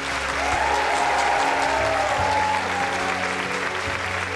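Audience applauding over background music.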